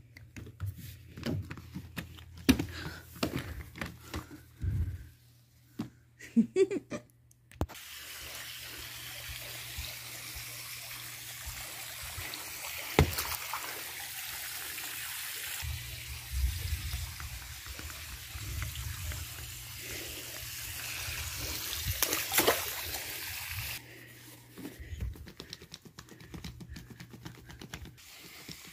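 Steady rush of water in a swimming pool for about sixteen seconds, with a few sharp knocks in it. Before it come scattered small clicks and knocks, and after it the rush stops suddenly, leaving a few more knocks.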